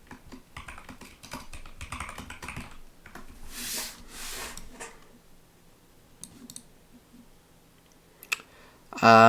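Computer keyboard typing: a run of quick keystrokes for about five seconds, then a few scattered key presses.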